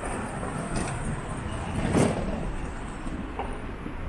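City street traffic noise, a steady mix of passing vehicles, with a brief thump about halfway through that is the loudest moment.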